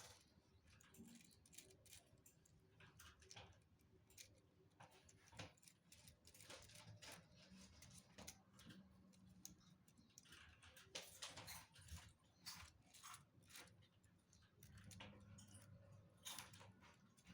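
Faint, irregular clicking and light rattling of plastic Lego Technic parts being handled, with a faint low hum at times.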